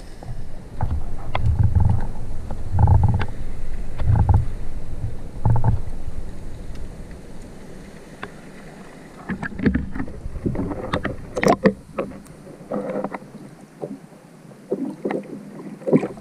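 Muffled underwater sounds heard through a diver's camera housing. Low thumps of water movement come in the first few seconds, then a run of sharp clicks and knocks.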